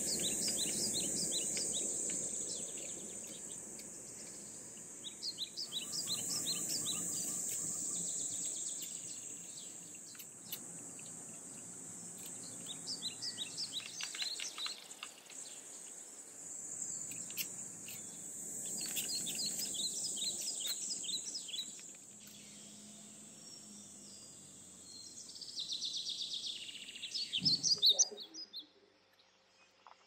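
Outdoor ambience of a steady, high insect drone with birds chirping in short, rapid runs. It cuts off near the end with a few clicks, then near silence.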